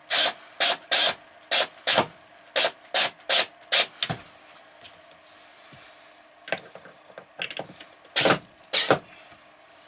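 Cordless drill-driver run in short bursts, driving screws into a cabinet door hinge. A fast run of about nine pulses, a pause with a few lighter ones, then two more loud pulses near the end.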